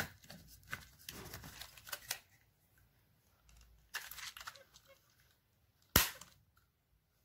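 Small plastic clicks and rustling from a battery pack being pushed into an RC rock crawler's battery compartment. About six seconds in there is one sharp snap as the plastic compartment cover is pressed shut.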